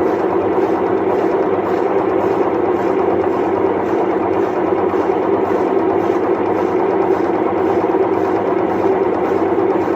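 Electrolux washing machine's drum bearing roaring steadily as the drum turns: the sign of a worn drum bearing.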